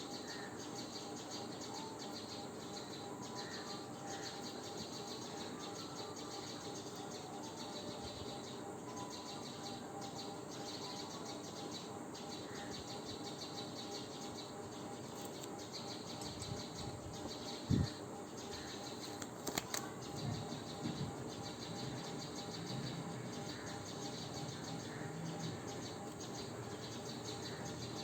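Steady background of insects and birds chirping. A soft thump comes about eighteen seconds in, followed by a few light knocks.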